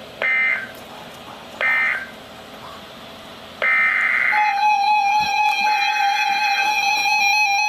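Emergency Alert System digital data bursts: two short screeching bursts of stacked tones about a second and a half apart, the end-of-message code that closes a severe thunderstorm warning. About halfway through, a longer burst runs straight into a steady electronic alert tone.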